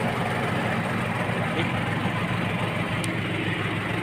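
Small wooden boat's engine running steadily under way, a low drone with water rushing and splashing along the hull.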